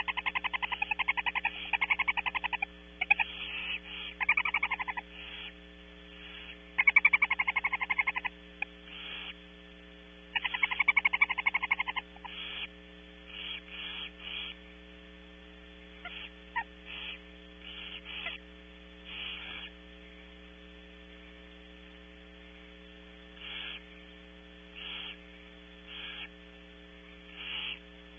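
Barn owls in a nest box giving rapid, rattling chittering calls in a run of long, loud bursts over the first twelve seconds, then shorter, fainter calls spaced out through the rest, typical of calling during a feeding. A steady electrical hum from the nest camera runs underneath.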